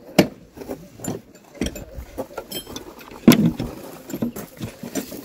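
Sharp knocks, clicks and scraping as a tractor's air filter element and its end cap are pushed back into the air cleaner housing. The loudest knock comes about three seconds in.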